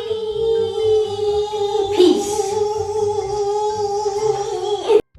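Outro music with one long held sung note over a backing beat, cutting off suddenly about five seconds in.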